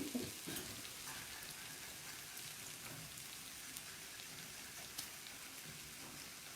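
Food frying with a faint steady sizzle and occasional small crackles and pops.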